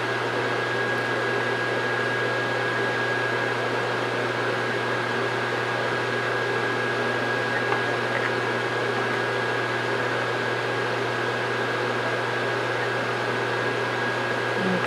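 Steady mechanical whirr of a running machine, fan-like, with a low hum and a thin high whine that never change. A faint light clink of a utensil about eight seconds in.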